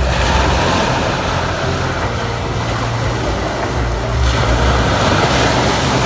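Sea waves breaking and washing over a pebble beach, with wind rumbling on the microphone; a wave surges about four seconds in.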